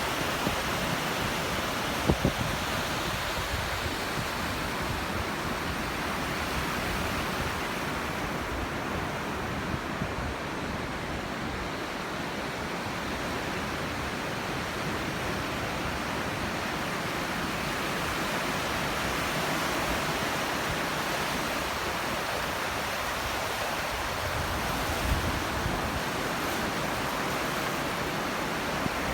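Sea surf washing onto the shore: a steady rush of noise that swells and eases slowly as the waves come in, with a brief low bump about two seconds in and another a few seconds before the end.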